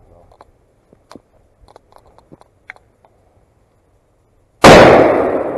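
A single rifle shot from a Remington 7600 pump-action in .270 Winchester, about four and a half seconds in, its report dying away over a second or more, after a few faint ticks. It is a second, finishing shot on a wounded deer.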